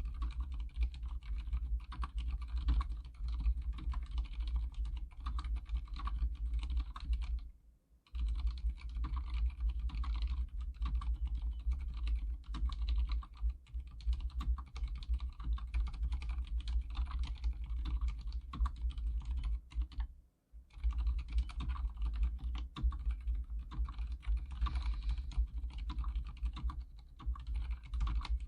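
Continuous fast typing on an Archon K79 full-size keyboard with silent red linear switches: a dense run of muted, dampened keystrokes. It pauses briefly twice, about 8 seconds in and about 20 seconds in.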